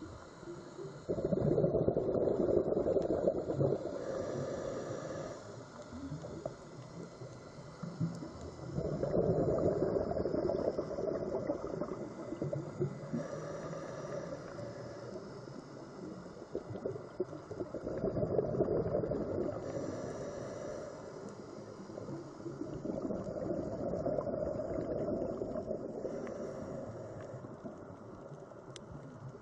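Scuba diver breathing through a regulator underwater: four bubbling exhalations at roughly eight-second intervals, each fading over a few seconds, with a fainter hiss of inhalation between them.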